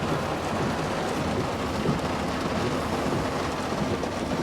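Heavy rain falling steadily on a pickup truck, heard from inside the cab, with a faint low hum underneath.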